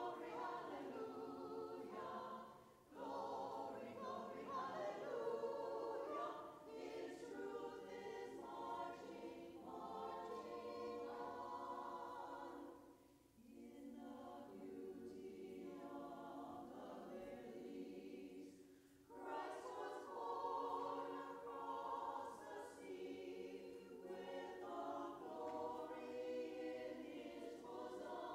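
Women's choir singing in parts, the sung phrases broken by brief pauses about 3, 13 and 19 seconds in.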